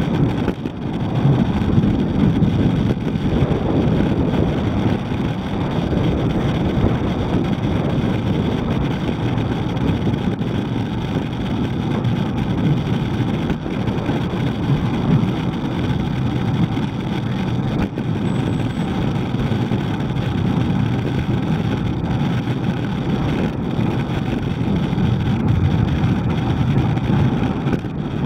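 Steady rush of wind buffeting the microphone of a camera on a moving bicycle, mixed with road and traffic noise, with no pauses.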